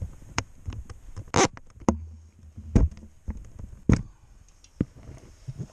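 Handling noises from a smallmouth bass held by the lip at the gunwale of an aluminum boat: several sharp knocks and taps, with a short splash-like burst about a second and a half in.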